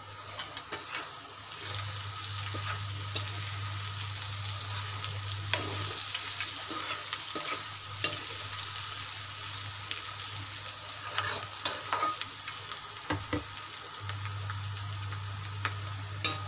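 A steel spoon stirring and scraping egg and cauliflower masala in a metal kadai, with a light sizzle of frying underneath. Irregular sharp clicks come where the spoon knocks and scrapes against the pan, bunched around the middle and near the end.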